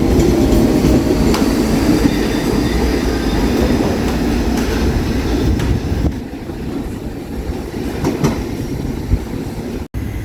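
New York City subway train running along the track, its wheels clacking over rail joints now and then, with a faint high wheel squeal. The running noise eases off about six seconds in.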